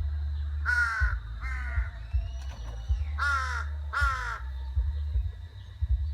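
A crow cawing four times in two pairs, each call harsh and falling in pitch, over a steady low rumble.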